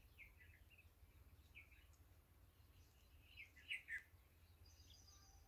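Near silence with faint, scattered bird chirps, a short run of louder chirps a little before the four-second mark, over a faint steady low hum.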